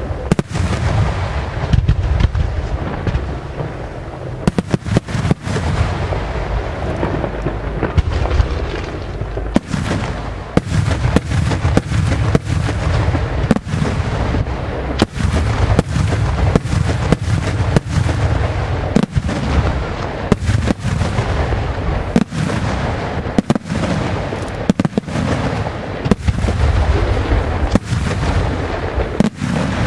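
Aerial fireworks display: shells bursting in a steady barrage of sharp bangs over continuous low booming. The bangs come thicker from about ten seconds in.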